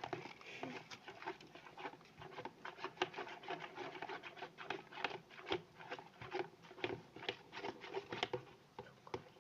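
Spoon stirring coloured clear glue in a bowl: a quick, uneven run of clicks and scrapes as the spoon knocks and drags against the container, a few strokes a second.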